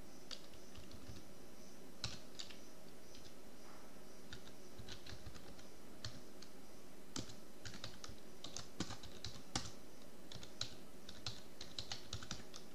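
Keystrokes on a computer keyboard typing a line of text, in irregular spurts of clicks that come sparsely at first and faster in a cluster near the end, over a faint steady hum.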